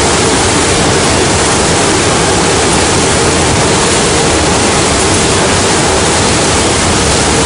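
Loud, steady rushing roar of wind and aircraft engine noise through the open jump door of a military transport plane in flight, drowning out everything else.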